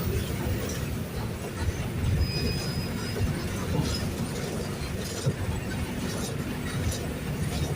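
Mercedes-Benz OF-1519 city bus's diesel engine running under way, heard from inside the bus, with steady rumble, body and fittings rattling, and a short high squeak about two seconds in.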